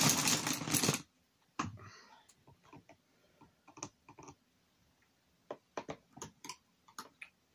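Paintbrush and painting materials being handled: scattered light clicks and taps, irregular and a fraction of a second apart, after a loud hissing rush about a second long at the start.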